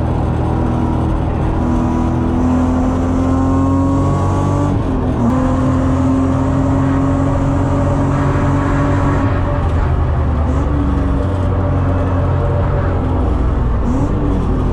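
BMW E36 323i's 2.5-litre straight-six engine heard from inside the cabin, pulling hard on track with its revs climbing steadily. Its pitch breaks about five seconds in and wavers again near the end. Road and wind noise run under it.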